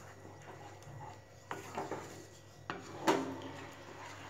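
Wooden spatula stirring and scraping a watery tomato-and-sev curry in a nonstick kadai, with a few short knocks of the spatula against the pan.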